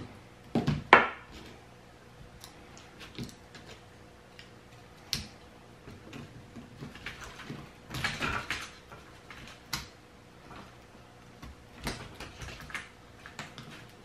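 Scattered clicks, taps and short scrapes of a small hand tool and fingers working on a lithium battery pack's plastic holder and circuit board, as its connections are pried loose. The loudest knocks come about a second in, with another cluster around eight seconds in.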